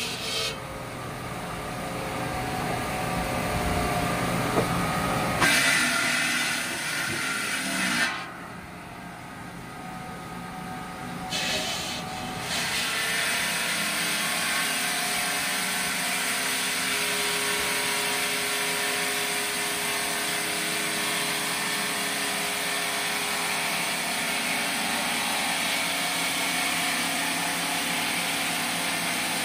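Water-cooled circular blade of a stone-cutting saw grinding through a large stone boulder: a continuous grinding hiss, changing abruptly a few times in the first dozen seconds and then steady.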